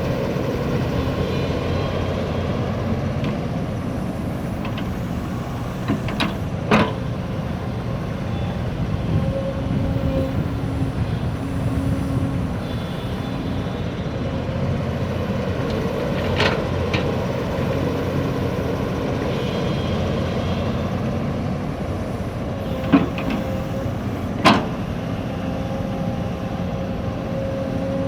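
Backhoe's engine running steadily under work, with pitched tones that come and go over the drone. Several sharp knocks stand out, the loudest a little under a quarter of the way in and twice near the end.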